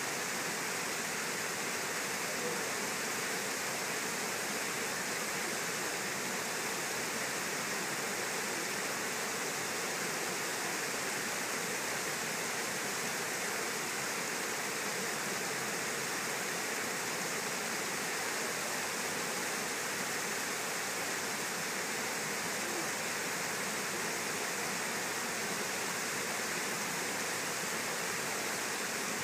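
Water pouring over the spillway of a low river dam: a steady, unbroken rush of falling water.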